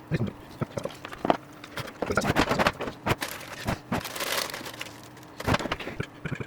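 Parts of a pool pump's drive module being handled and its plastic cover test-fitted: scattered clicks and knocks, with a longer rustling, scraping stretch in the middle and a sharper knock near the end.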